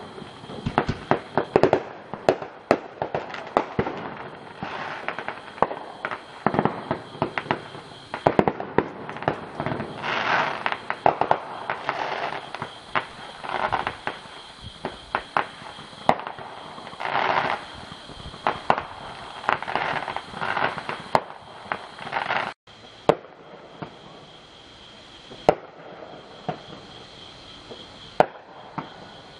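Fireworks going off in dense, rapid volleys of sharp pops and bangs with crackling stretches. After a brief dropout about two-thirds through, they thin to scattered single bangs. A steady high-pitched tone runs underneath.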